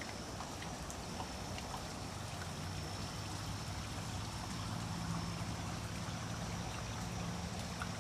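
Steady trickling wash of running water, like a small stream.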